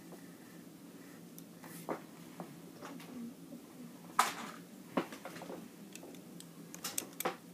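Plastic construction-toy pieces being handled and snapped together: a scatter of short, sharp clicks and clacks, the loudest about four seconds in, with a quick pair near the end.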